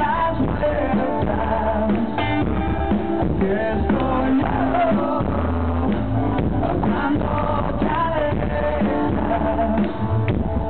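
Live rock band playing: a man singing into a microphone over electric guitar, bass guitar and drum kit.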